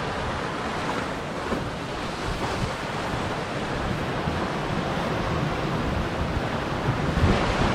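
Ocean surf washing and breaking against a rocky shoreline, a steady rushing wash, with wind buffeting the microphone in low rumbling gusts.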